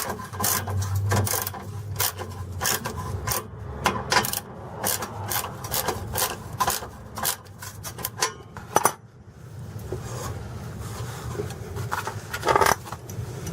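Hand tools on a slip-fit exhaust clamp's 15 mm nut: quick metal clicks and scraping for most of the first nine seconds, then quieter rubbing with a few knocks. The work is loosening the clamp so the leaking pipe section can be pushed back on.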